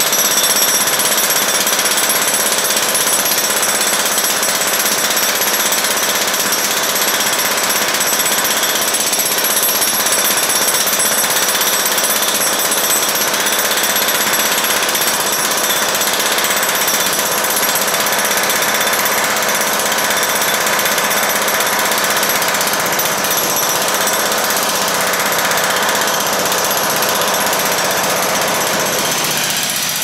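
Electric jackhammer hammering continuously into a concrete floor, breaking up the slab to get at the plumbing pipes beneath.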